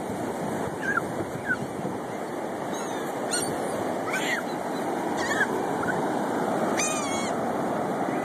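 Steady wash of ocean surf, with short gull cries heard about six times through it.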